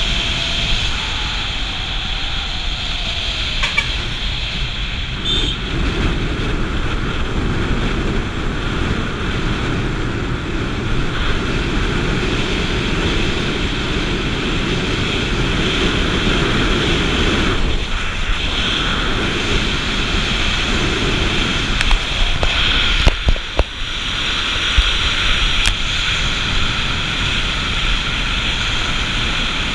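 Motorbike on the move: steady wind rush over the microphone mixed with the engine and tyre noise, with a few sharp knocks about three quarters of the way through.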